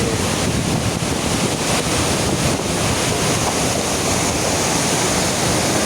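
Steady, loud rush of water falling at a waterfall.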